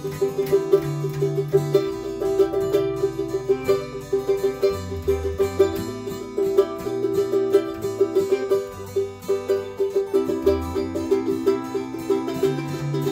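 Ukulele, acoustic guitar and electric bass guitar playing an instrumental passage, the ukulele strummed rapidly over changing bass notes.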